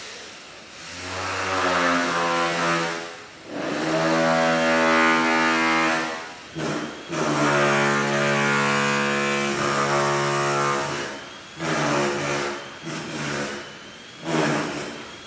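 Circular saw motor whining as the trigger is pulled and released several times: each run winds up in pitch, holds for a few seconds, then winds down, with a few shorter blips near the end.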